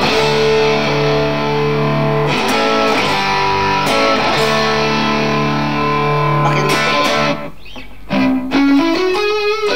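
Electric guitar played through a Valeton GP-200LT multi-effects unit on a crunch preset, lightly overdriven. Two chords are left ringing for several seconds, then after a short dip a single-note lick climbs in pitch near the end.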